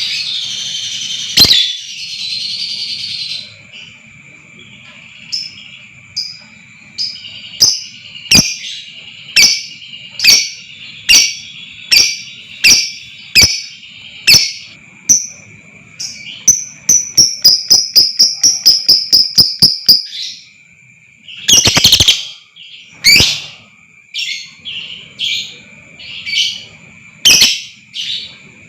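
Lovebird calling in sharp, shrill chirps at a regular pace, about one every 0.7 s. Around two-thirds of the way in they speed into a fast chattering run, the 'ngekek' trill, before breaking into a few scattered loud calls. A steady high-pitched whine runs underneath.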